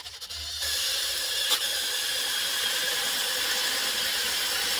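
DeWalt cordless drill boring a 3/8-inch hole through a thin metal sconce base. A quick chatter of clicks comes as the bit bites in, then the bit cuts the metal with a steady, high, hissing scrape.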